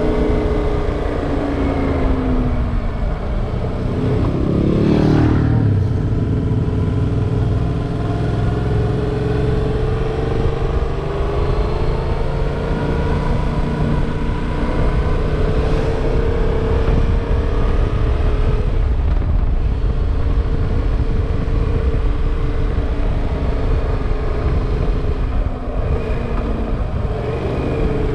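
Motorcycle engine running while riding, its pitch rising and falling with throttle and gear changes, under heavy wind noise on the microphone.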